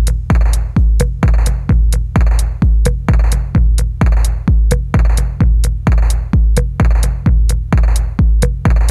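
Electronic background music with a steady drum-machine beat: a heavy kick drum about twice a second, with a clap-like hit on every other beat and light hi-hat ticks between.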